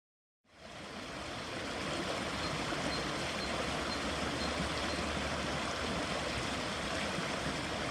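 Floodwater in a swollen creek rushing steadily, fading in about half a second in.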